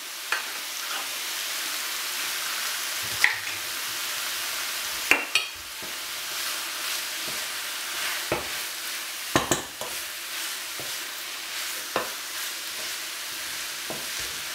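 Rice sizzling in a hot frying pan as it is stirred with a wooden spoon. The spoon knocks against the pan about six times.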